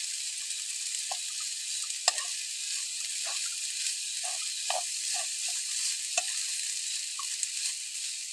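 Food sizzling in a hot pan: a steady hiss with scattered small pops, and two sharper clicks about two and six seconds in.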